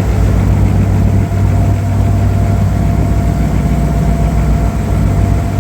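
Fishing boat's engine running steadily: a loud, even low drone with a faint steady whine above it.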